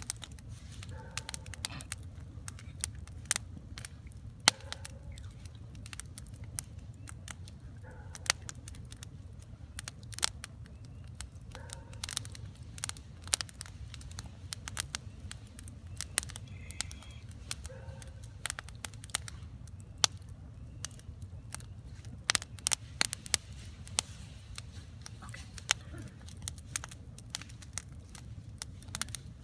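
Campfire wood burning, crackling and popping in irregular sharp snaps, over a steady low rumble.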